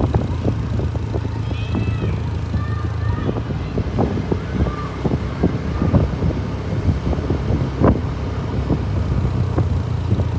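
Motor vehicle running, a steady low engine drone with frequent knocks and rattles. A few faint short chirps come in a couple of seconds in.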